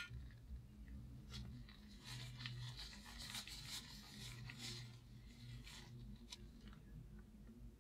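Faint, soft rubbing and squishing of gloved fingertips working petroleum jelly into the glove surface, in small irregular strokes.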